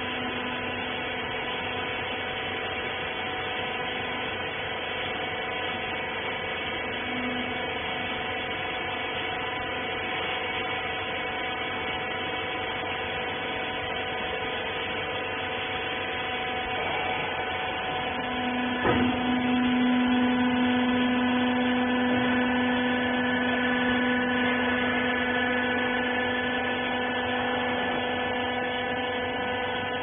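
Hydraulic baling press's pump motor running with a steady hum of several tones. About two-thirds of the way through there is a single knock, after which a lower hum comes in and the machine runs louder for around ten seconds.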